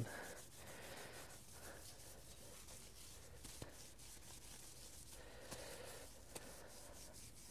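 Faint rubbing of a cloth wiped over an alloy wheel with degreaser, cleaning grease and grime out of the rim before filling, with a couple of light clicks.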